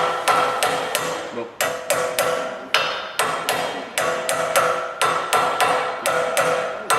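Rapid hammer blows driving a bearing bushing into a steel swinging-arm housing, about three strikes a second with a short pause about a second and a half in, each blow leaving a metallic ring.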